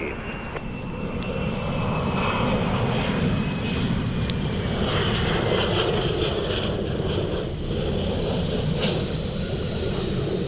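Jet airplane engines running as an aircraft passes, a steady rumble with a high whine that slowly falls in pitch.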